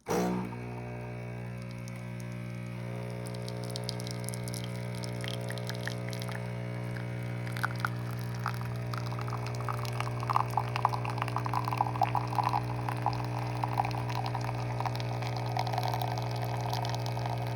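Instant Pod coffee machine's pump switching on with a steady hum as it brews an espresso pod. From about four seconds in, espresso spatters and trickles into the cup over the hum.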